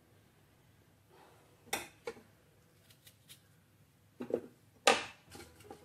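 A few short, sharp handling noises, soft knocks and rustles, as clove-studded onion pieces are handled and dropped into a steel pan of milk; the loudest comes about five seconds in.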